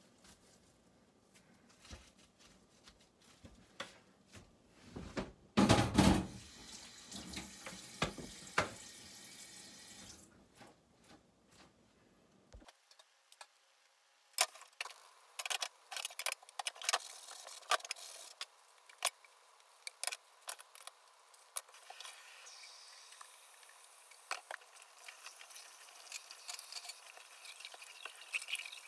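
Cling film crinkling and rustling as hands twist it tight around rolled chicken breasts, with a louder burst about six seconds in. After a cut, scattered small pops and ticks from a pot of water heating on the stove with the wrapped rolls in it.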